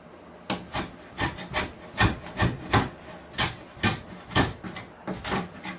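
Wood plane shaving down the raised ends of wooden boards in short, regular strokes, about two or three a second. The blade is a little dull but still cutting.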